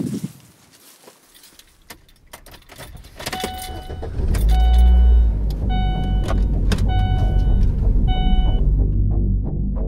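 A low thump, then keys jingling, then a car's warning chime that sounds about five times, a little over a second apart. About four seconds in the engine starts and runs steadily.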